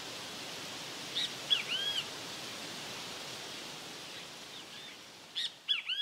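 Great kiskadee calling: a few short notes, each rising and falling, about a second in, faintly again past the middle, and louder near the end. A steady outdoor hiss runs underneath.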